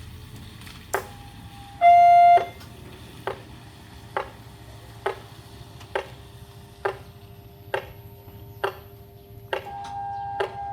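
Railway level-crossing warning siren malfunctioning. It gives one short loud beep about two seconds in, then a sharp ringing ding a little faster than once a second. Near the end a steady alarm tone starts up alongside the dings.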